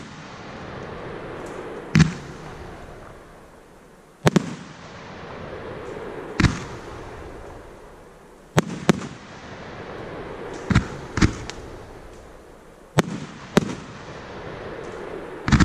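A 55 mm firework candle firing silver rain peony shots: a sharp bang about every two seconds, some in close pairs, with a hiss between them.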